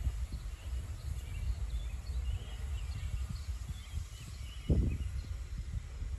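Wind buffeting the microphone in an uneven low rumble, with small birds chirping faintly and one brief thump about three-quarters of the way through.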